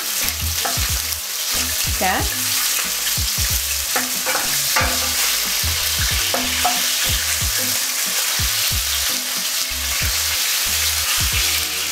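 Chicken pieces sizzling in hot oil in a frying pan, stirred with a wooden spoon that scrapes and knocks against the pan over and over.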